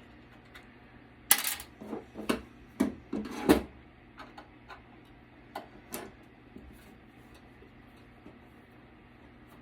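Metal clinks and knocks of a hand tool working a screw out of a desktop computer's steel chassis: a run of about six sharp knocks starting about a second in, then two lighter taps.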